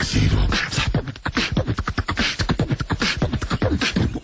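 A voice doing beatbox-style mouth percussion: a fast, unbroken run of clicks, pops and low thumps.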